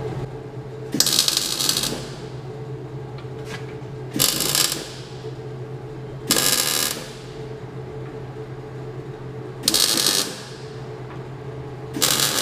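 Electric arc welder laying a series of short tack welds, five brief crackling bursts a couple of seconds apart, the last starting near the end, tacking the rear swingarm to the kart's steel chassis. A steady low hum runs underneath.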